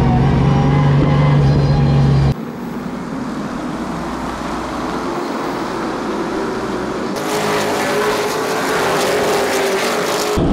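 Circle-track race car engines running hard, in edited cuts. First a steady, loud engine note heard from inside the cockpit. Then, after a cut about two seconds in, the sound of a field of cars racing, which grows louder with a slowly rising engine pitch near the end.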